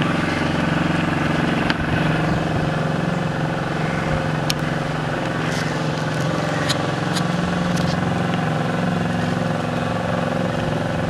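A small boat motor running steadily at a constant pitch, driving a narrow wooden canal boat along, with a few faint sharp clicks.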